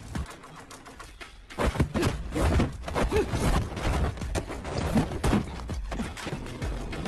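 Fight sound effects from a live-action martial-arts drama: after a quiet first second and a half, a quick run of blows and swishes.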